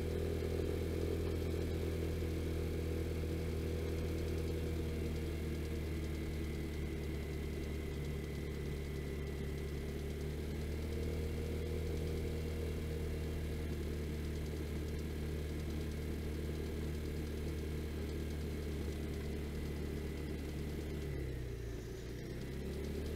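Vespa GTS scooter's single-cylinder four-stroke engine running at a steady cruising speed, heard through the rider's helmet intercom microphone. Near the end the engine note dips briefly and then comes back up.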